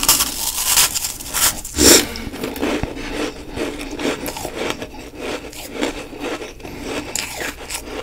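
A bite into a chunk of powdery humidifier frost, then chewing it: loud crunches in the first two seconds, the loudest just before the two-second mark, settling into steadier, softer crunching of the ice in the mouth.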